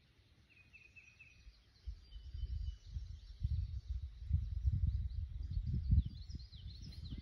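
A gusty low rumble of wind on the microphone, starting about two seconds in and growing louder, over birds chirping in the background.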